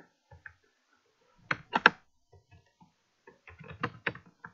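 Computer keyboard typing in short bursts: a few light keystrokes, a louder pair about one and a half seconds in, then a quicker run of several near the end.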